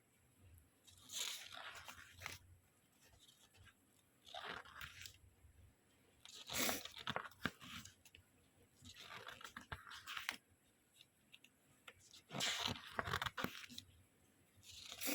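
Packaging being handled and torn open: irregular crinkling and tearing noises every second or two, with short quiet gaps between.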